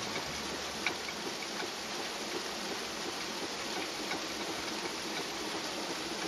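Traditional water mill (ghatta) running: a steady rushing grind from the spinning millstone, with light irregular ticks and one sharper tick about a second in, typical of the wooden grain feeder knocking against the turning stone.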